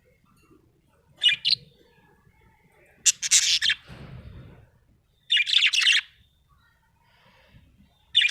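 Budgerigar chirping in short bursts of rapid high notes, one burst every two to three seconds.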